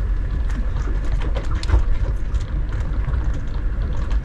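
Land Rover Defender driving along a rough dirt track: a steady low engine rumble with many small knocks and rattles.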